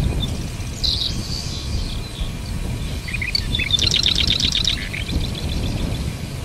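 Marsh wren singing: a few short introductory notes, then a fast, dry rattling trill of about a dozen notes lasting around a second. A steady low rumble runs underneath.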